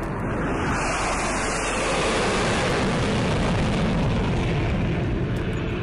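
Sound effect of a passing jet airliner: engine noise that swells over the first two seconds and then holds steady.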